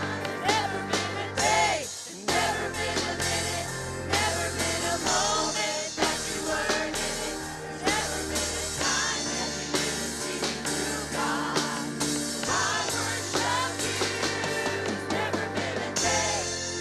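A praise band playing a gospel worship song with singing and a drum kit, the singing carried without clear words.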